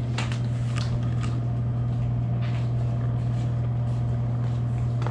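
A steady low mechanical hum, with scattered short clicks and rustles over it.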